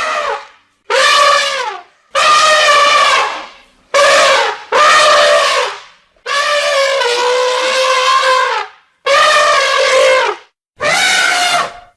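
An animal calling over and over: about eight loud, drawn-out pitched calls, each a second or two long, with short pauses between.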